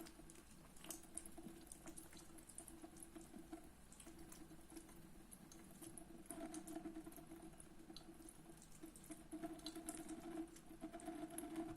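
A thin stream of tap water running into a sink, faint and steady, with scattered small drips and splashes.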